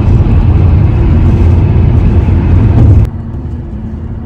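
Steady low road and engine rumble inside a moving car's cabin. About three seconds in it drops abruptly to a quieter, thinner rumble.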